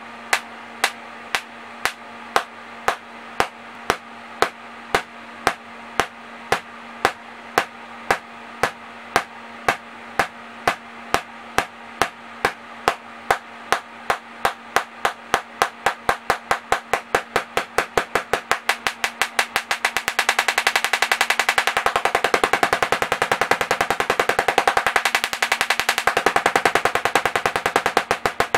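Tesla coil sparks cracking in an even rhythm, about one and a half a second at first and steadily speeding up until, about twenty seconds in, they run together into a louder rapid crackle that eases slightly near the end. The coil is pulsed by a MicroBrute synthesizer's modulator at low frequency with a long pulse width, each pulse firing one spark.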